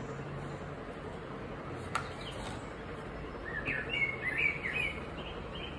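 A bird chirping a quick run of short notes in the second half, over a steady low background hum, with a single sharp click about two seconds in.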